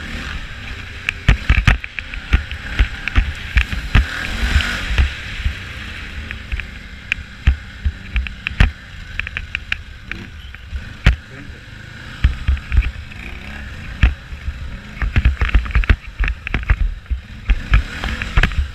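Loose snap-in GoPro mount rattling and knocking on an ATV riding over rough gravel: irregular sharp knocks, several a second in clusters, over a steady rumble of engine and wind. The knocking comes from the camera not sitting tight in its mount.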